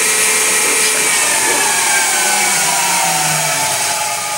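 EMCO CNC lathe running, its spindle drive giving a steady high hiss and a whine of several tones. About halfway through the whine glides down in pitch as the spindle slows.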